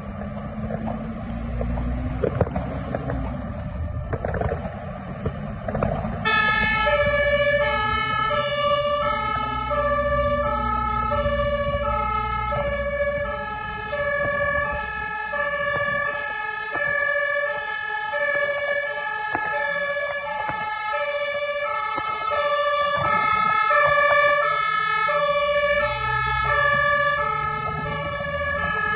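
Fire engine's diesel engine running and pulling away. About six seconds in, its two-tone siren comes on, switching steadily back and forth between a high and a low note, over the engine's rumble.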